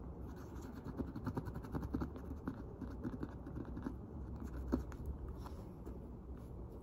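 Cotton swab scrubbing the tarnished brass hardware of a leather handbag: a faint, rapid scratching with many small ticks and one sharper tick nearly five seconds in. The swab is rubbing years of dirt and tarnish off the brass.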